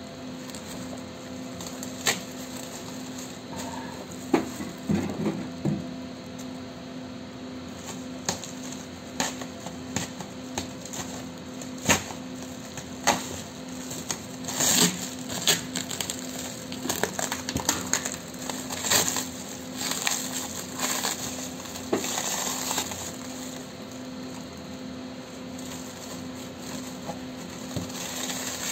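Plastic mailer bag crinkling and rustling as it is pulled and torn open by hand, with irregular sharp crackles, busiest in the middle.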